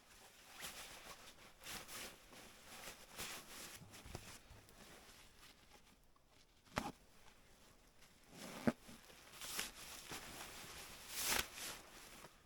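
Soft, irregular rustling and shuffling of camping gear being handled and packed away, with sharp clicks about seven and nine seconds in.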